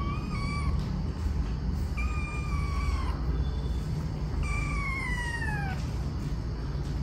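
A kitten meowing three times in high, thin cries, the last one the longest and falling in pitch, over a steady low rumble.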